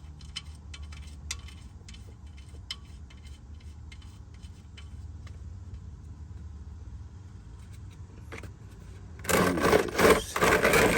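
A few light metal clicks as an oil drain plug is threaded back into the oil pan by hand, over a low steady hum. About nine seconds in, a loud metallic jangling clatter starts and carries on to the end.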